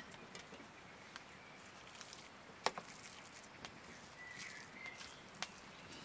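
Light clicks and knocks of a metal cooking pot being uncovered and its cooked rice stirred with a wooden spoon, the sharpest knock a little before halfway and another near the end. A short high chirp sounds about three-quarters of the way in.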